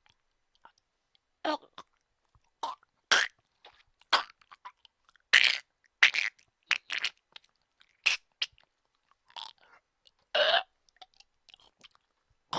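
A person coughing: a series of short, single coughs at irregular intervals, some louder and some lighter, with faint mouth clicks in between.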